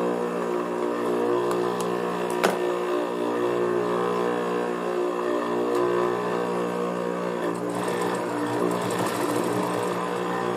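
Juki industrial sewing machine running with a steady motor hum while suede fabric is fed under the needle. A single sharp click comes about two and a half seconds in.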